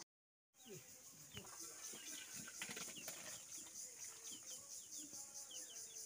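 Birds chirping, many short falling chirps in quick succession, over a steady high hiss. The sound drops out for about half a second at the start.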